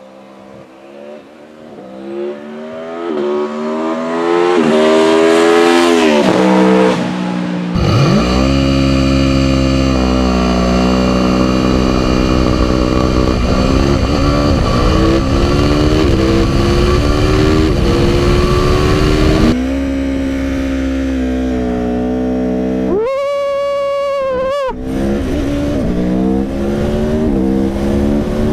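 2017 Aprilia Tuono V4 engine accelerating hard from a launch-control start, its pitch climbing and dropping back with each upshift as it gets louder. About eight seconds in, the sound jumps to a closer, louder take of the engine running at speed with more upshifts. A sharp rev rises and falls near the end.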